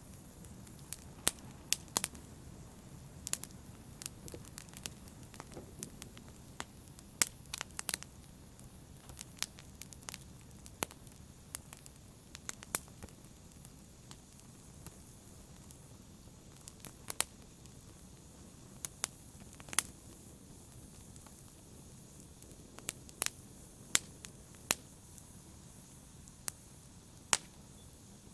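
Wood fire burning in a fireplace: a low, steady rumble of flames with sharp, irregular crackles and pops scattered throughout.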